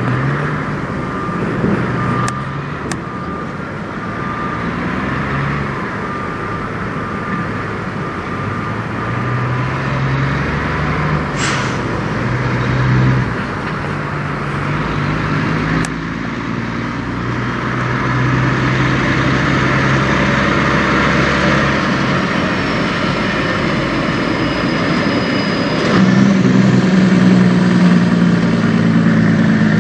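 Kenworth W900 semi truck's diesel engine running as the tractor-trailer drives by, growing louder near the end as it passes close.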